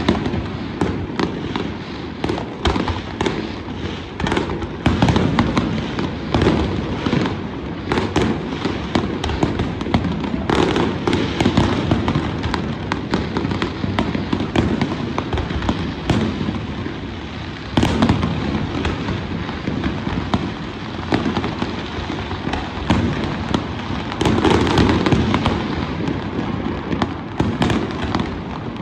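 Fireworks display: a dense, continuous barrage of bangs and crackling, with several louder bursts along the way.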